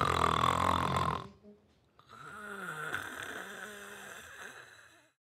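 A young woman snoring in her sleep. A loud snore lasts about a second, then after a short pause comes a quieter, longer snore with a wavering pitch.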